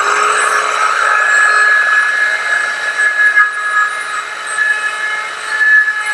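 Electric power tool running steadily with a whine, rounding the edge of a small wooden bowl blank.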